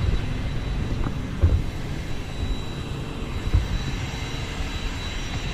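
A car running: a steady low rumble with a few louder low thumps, one about a second and a half in and another past the middle.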